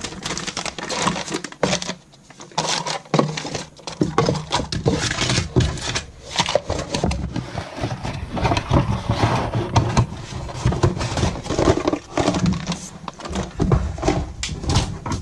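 Plastic bait packets and clear plastic blister packs being gathered up and put back into a cardboard box: continuous rustling, crinkling and small knocks, easing off briefly about two seconds in.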